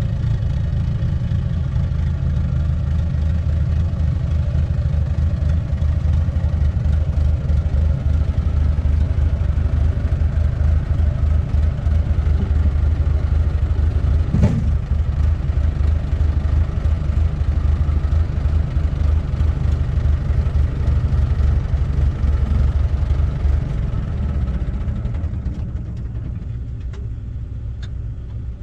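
Tractor diesel engine running steadily, with a single knock about halfway through; near the end the engine drops to a lower, quieter level.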